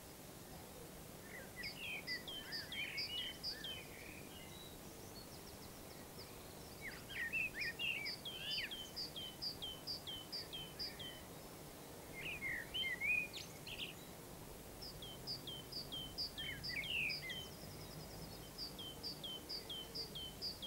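Songbirds singing: phrases of quick, high, falling notes, about five a second, broken by short warbling runs, over a faint steady outdoor hiss.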